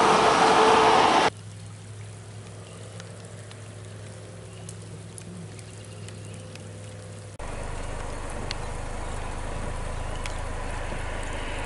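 Swollen floodwater rushing past in a roadside drainage ditch, a loud steady rush that cuts off sharply about a second in. After that comes a much quieter steady low hum with faint scattered ticks. About seven seconds in, a louder steady low hum with a light hiss takes over.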